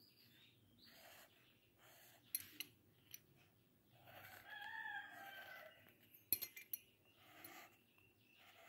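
Pencil scratching on paper in short strokes, with a rooster crowing once, a single long call about four seconds in, and a few sharp clicks.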